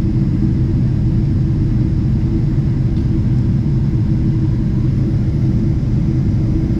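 Steady low rumble of a Boeing 777-300ER in its climb, its GE90 engines and the airflow heard inside the economy cabin.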